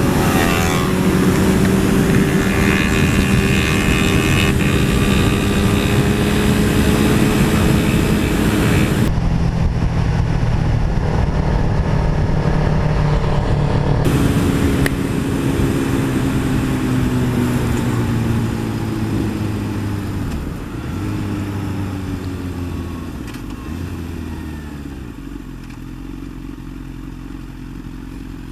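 Sport motorcycle engine and exhaust running at road speed, with wind noise. The sound changes abruptly about nine seconds in. Over the last third the engine note falls and grows quieter as the bike slows.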